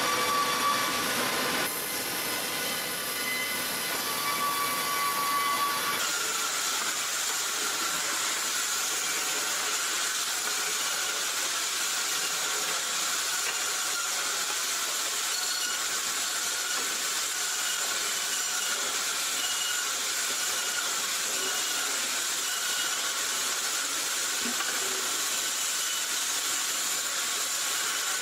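Steady mechanical hissing noise from working machinery, with a faint pitched hum over it for the first few seconds, then an even hiss.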